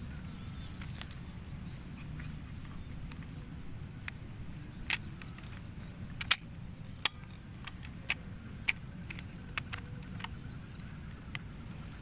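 Steady high-pitched insect chirring from the rice paddy, broken by a few sharp clicks; the two loudest, under a second apart about halfway through, come from an air rifle being fired at a bird.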